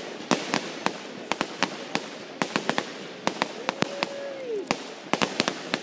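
Aerial fireworks bursting: an irregular run of sharp pops and crackles, several a second.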